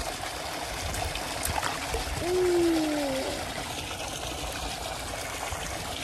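Steady splash and trickle of a pool's water jet arcing into the pool, with a short falling voice sound about two seconds in.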